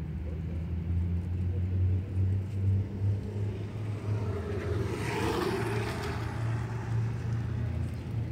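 Steady low hum of motor-vehicle engines, with a vehicle passing by about five seconds in.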